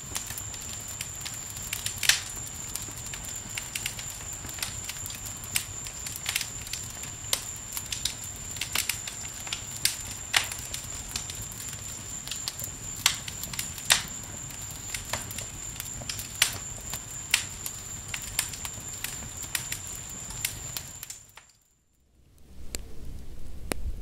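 Wood campfire crackling, with irregular sharp pops and snaps over a low rumble of flames, and a thin steady high tone beneath it. Near the end the sound drops out for about a second, then a lower rumbling sound comes in.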